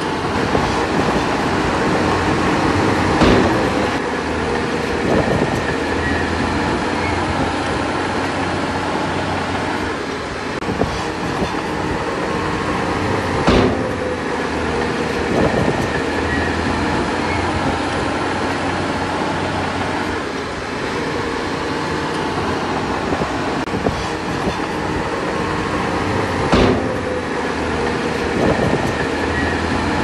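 Earthmoving machinery at work: a diesel engine running steadily with a low hum, and sharp metallic clanks every few seconds.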